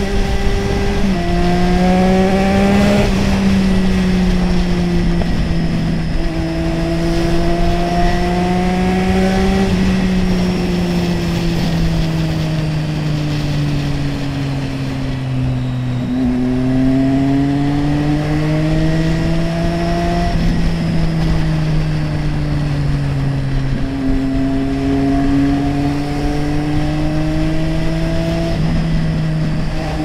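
Triumph Street Triple 675R's 675 cc inline three-cylinder engine under way, its pitch climbing under throttle with a sharp drop at each upshift, several times. Through the middle it falls slowly as the throttle is rolled off, then pulls again, with a steady rush of wind and road noise underneath.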